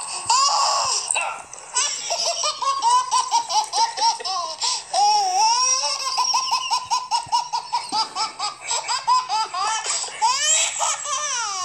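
A baby laughing hard in long runs of quick belly-laugh pulses, several a second, with brief breaks between runs.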